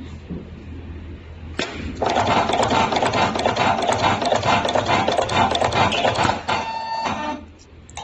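Semi-automatic membrane-switch connector-pin crimping machine running a crimp cycle: a click about a second and a half in, then about four seconds of loud, fast mechanical rattling of repeated strokes, ending in a short whine before it stops near the end.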